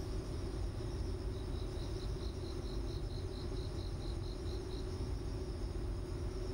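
Steady low hum and hiss of room tone. A little over a second in, it is joined for about three seconds by a run of faint, even, high-pitched chirps, about four a second.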